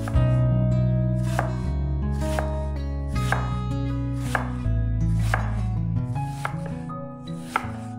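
Knife chopping vegetables on a cutting board, sharp cuts about once a second, over background music with sustained bass notes.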